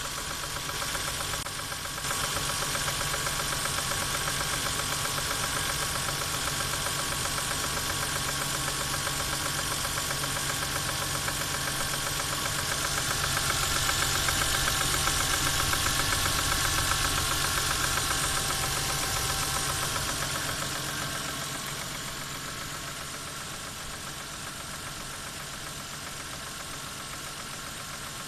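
Toyota JZ-series straight-six engine running with a knock. It runs louder for several seconds through the middle, then settles back quieter a little past twenty seconds.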